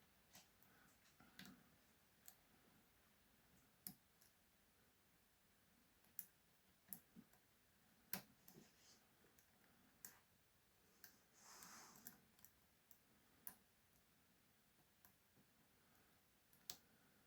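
Near silence broken by faint, irregular single clicks of a lock pick and tension tool working the pins inside a challenge lock, with a brief soft rustle about twelve seconds in.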